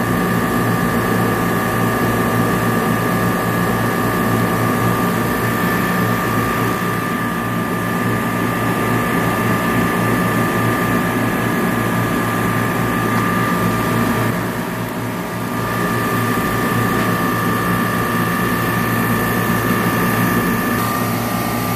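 Refrigeration rack compressors running in a supermarket motor room: a loud, steady drone with a low hum and two steady high whines, dipping briefly about two-thirds of the way through.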